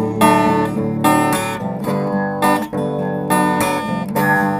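Acoustic guitar strummed, chords ringing on between the strokes.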